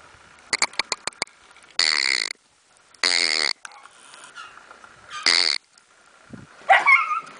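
Central Asian Shepherd (alabai) puppy sniffing hard three times, each sniff about half a second long, then starting to whine with wavering, up-and-down yelps near the end. A few sharp clicks come just before the first sniff.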